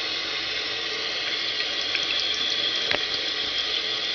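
Steady rush of running water, with a few faint clicks over it.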